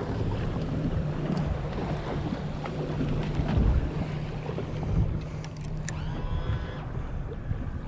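Boat engine running with a steady low hum, with wind buffeting the microphone.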